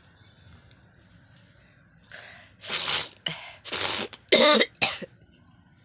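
A person forcing out a quick run of harsh coughs and throat-clearing hacks, about six in all, starting about two seconds in, the loudest near the end: coughing up spit on purpose.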